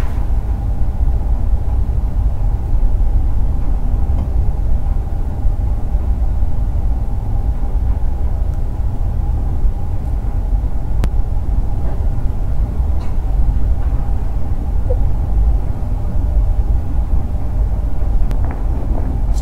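A steady low rumble with a faint hum above it and a couple of faint clicks.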